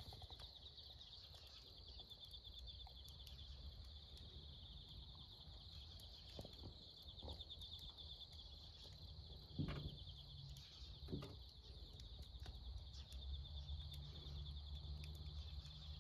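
Faint outdoor ambience: a steady, high-pitched trill with a fine rapid flutter runs throughout over a low rumble that grows toward the end. Two short knocks, about ten and eleven seconds in, are the loudest sounds.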